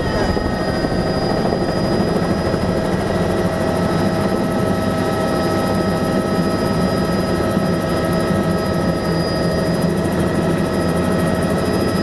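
Helicopter engine and rotor running steadily, heard from inside the cabin, with a steady whine over the rotor noise as it comes down low to land.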